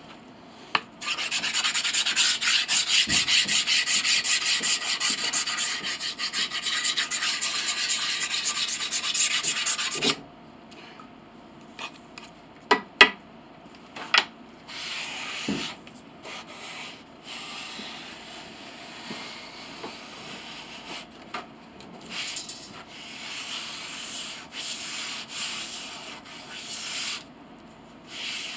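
Flat sanding block, a flat piece of wood wrapped in heavy-duty sandpaper, rubbed back and forth in quick strokes over a laminated wooden piano pinblock to find and level its high spots. The rubbing is loud for the first ten seconds, then turns softer and comes in intermittent strokes, with a few sharp knocks about thirteen to fifteen seconds in.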